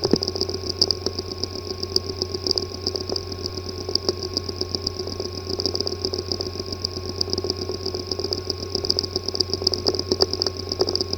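A hard drive with a physically damaged disk assembly running: a steady hum and a high fluttering whine, with many small irregular ticks. It is the clicking, buzzing kind of weird sound that marks internal mechanical damage to the platters or heads.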